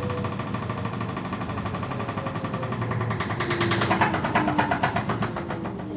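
LG 7 kg washing machine running with a fast, loud rattling and knocking vibration over a falling whine; the rattle builds about three seconds in, then eases. This is the abnormal noise and vibration the owner calls horrible, which came back after a technician's visit.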